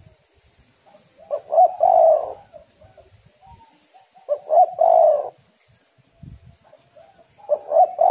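Female spotted dove cooing: three calls about three seconds apart, each a few quick notes leading into a longer coo, the last still sounding at the end.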